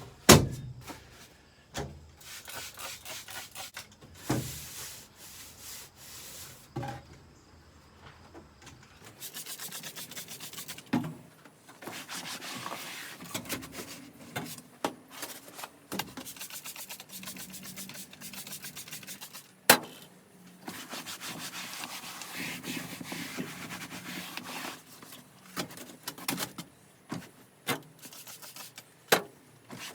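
Scrubbing and rubbing on a vehicle's back seat during cleaning, in stretches of steady strokes. A few sharp knocks come in between, the loudest just after the start and again about two-thirds of the way through.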